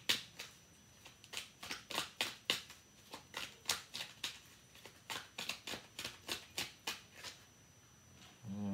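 Tarot deck being shuffled by hand: a run of sharp, irregular card snaps, about three a second, that stops about seven seconds in. A short hummed voice sounds near the end.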